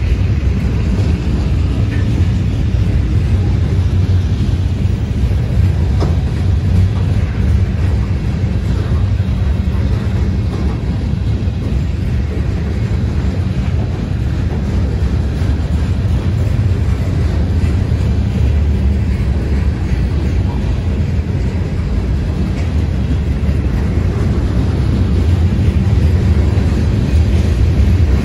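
Freight train rolling past: a steady low rumble of cars on the rails.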